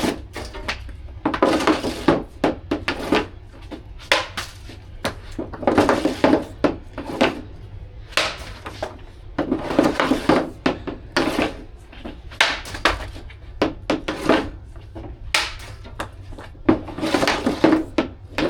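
Ice hockey skates and stick on ice: repeated scraping and clattering bursts, about one every one to two seconds, over a steady low rumble.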